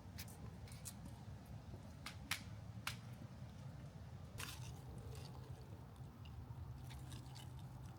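Hands digging through potting soil in a grow bag: faint crunching and squishing with a few sharp clicks, over a low steady hum.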